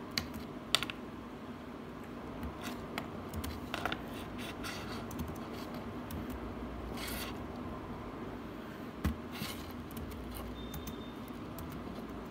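Faint handling sounds from using a laptop: scattered clicks and a few short scraping rubs over a steady low hum.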